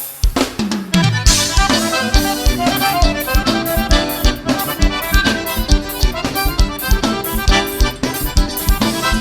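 Instrumental forró break: accordion playing the melody over a steady drum-kit beat.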